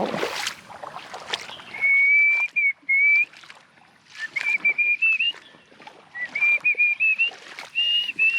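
A person whistling a tune: long, clear, high notes held in several phrases that step up and down in pitch, with short breaks between phrases. Faint clicks and small splashes of water sound underneath.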